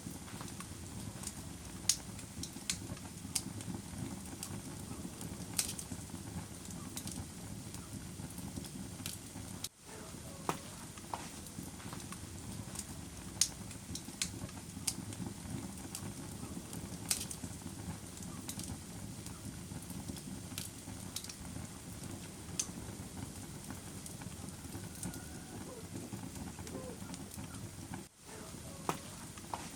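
Wood fire crackling in a fireplace: a steady low rumble of burning with scattered sharp pops and snaps at irregular intervals. The sound drops out briefly twice.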